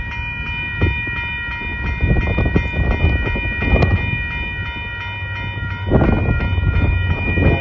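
Union Pacific freight train of hopper cars coming through a grade crossing: a low diesel rumble that grows louder about six seconds in, and knocks from the wheels. A grade-crossing bell rings steadily over it.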